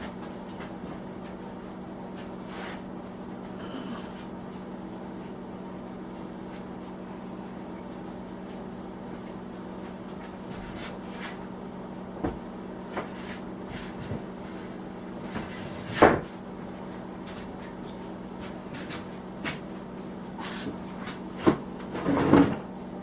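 Steady electric hum of a small shop heater running, with scattered knocks and clunks of parts and tools being handled, the loudest about 16 seconds in and two near the end.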